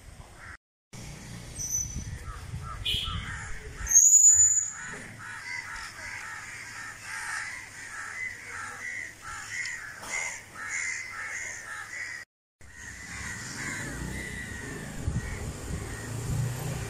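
Birds calling outdoors: a long run of short, harsh, rapidly repeated calls, with one loud, sharp, high call about four seconds in. The sound cuts out briefly twice, near the start and about twelve seconds in.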